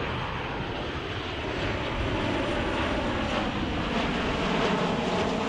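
Airliner's engines, a broad rushing roar that slowly grows louder, with wind buffeting the microphone.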